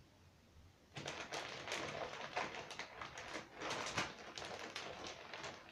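Crinkling and rustling of plastic packaging being handled, a dense crackle that starts about a second in and goes on steadily.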